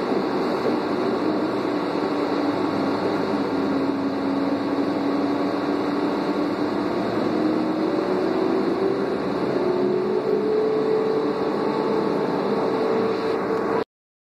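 Doosan CNG engine and Allison B400R transmission of a 2001 New Flyer C40LF city bus, heard from inside the passenger cabin while under way: a steady drone with a whine that rises slowly in pitch as the bus gathers speed. The sound cuts off abruptly near the end.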